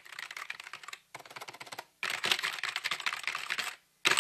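Rapid typing on a computer keyboard, in quick runs broken by short pauses, getting louder about halfway through.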